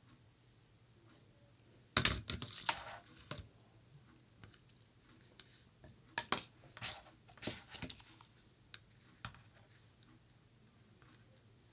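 Small craft materials being handled by hand on a table. A loud burst of crinkly rustling comes about two seconds in, then scattered light clicks and rustles.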